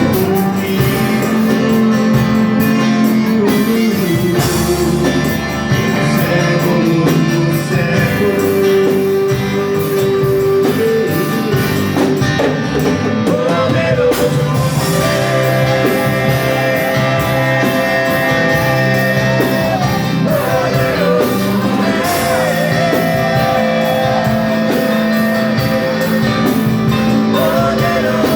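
Music with guitar and singing, loud and continuous.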